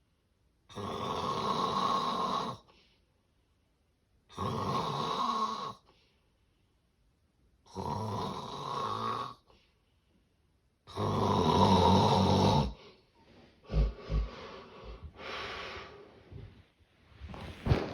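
Heavy snoring in severe sleep apnea: four long snores about every three and a half seconds with silent pauses between them, the fourth the loudest. Then the rhythm breaks into short, irregular snorts and gasping breaths with a couple of sharp catches.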